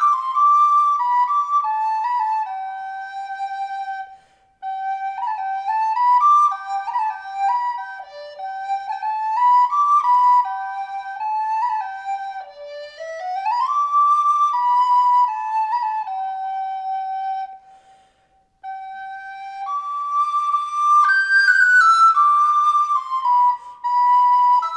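Solo wooden flute playing a slow improvised melody on Christmas carols, one note at a time, with a smooth upward slide about halfway through and short breath pauses about four seconds in and near eighteen seconds.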